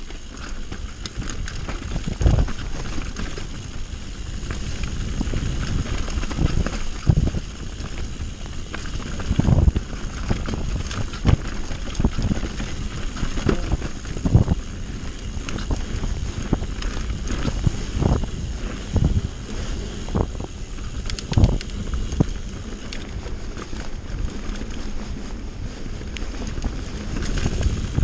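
Mountain bike descending a dirt and gravel trail: tyres rolling on the dirt, wind rushing over the camera microphone, and repeated low thumps and rattles as the bike hits bumps.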